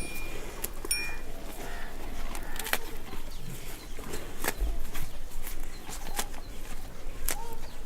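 A small temple bell struck twice, at the start and about a second in, each a high ringing tone that fades. After that come birds calling and many sharp clicks.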